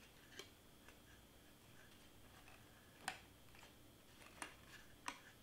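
A few faint clicks and taps of hands handling a cardstock letter while gluing its paper tabs down, the sharpest about three seconds in, over near silence.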